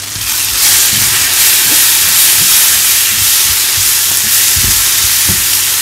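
Onions and tomato frying in oil in a nonstick pan, the sizzle swelling loud about half a second in as Kashmiri chilli powder is stirred into the masala base with a wooden spatula. A few low knocks from the spatula against the pan.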